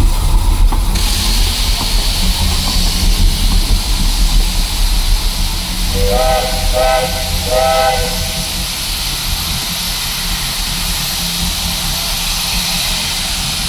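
Steam locomotive letting off a steady, loud hiss of steam that starts about a second in. Three short whistle blasts sound together near the middle.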